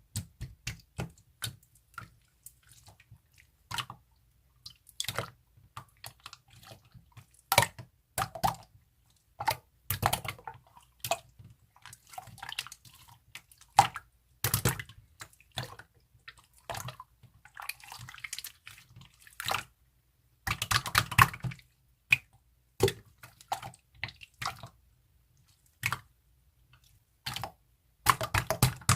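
Slime being squished and pressed by hand, making wet clicks and pops of trapped air at an irregular pace, with denser flurries of pops now and then.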